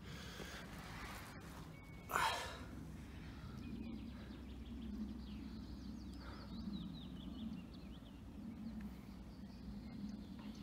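Quiet outdoor ambience: a low steady hum with faint bird chirps, and one short, louder rush of noise about two seconds in.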